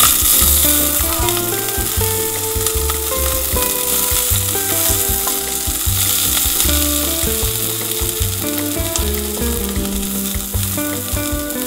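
Shredded cabbage and carrots frying in hot oil in a pan. The sizzle starts suddenly and loudly as the vegetables go in, then runs on steadily while they are stirred with a wooden spoon.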